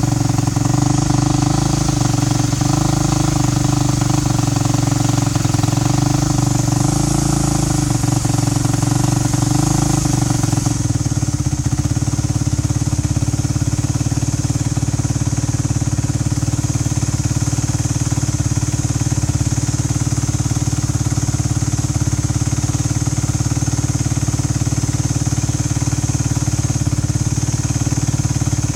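2012 Kawasaki KX450F's single-cylinder four-stroke engine running steadily on its first heat cycle after a top-end rebuild. Its note shifts about eleven seconds in, then holds steady.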